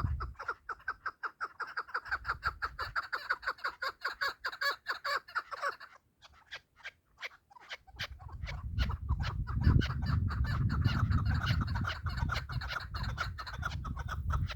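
Chukar partridges calling: a fast run of repeated short clucking notes, several a second, that breaks off about six seconds in and starts again about two seconds later. A low rumble runs under the calls in the second half.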